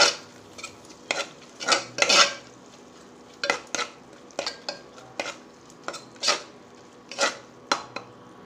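A metal spoon scrapes and knocks against the inside of a pressure cooker in a series of irregular strokes. It is stirring thick onion-tomato masala that is being sautéed on low heat until its raw smell cooks off.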